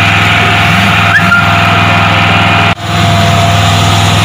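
An engine running steadily at a constant speed, with a low, even hum. The sound drops out for an instant about two-thirds of the way through.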